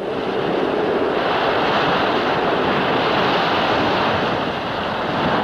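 Ocean surf: a steady rush of waves and sea noise that starts suddenly.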